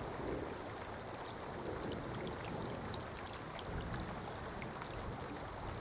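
Steady wash of moving river water with scattered small drip-like ticks, a low rumble of wind on the microphone, and a faint steady high whine.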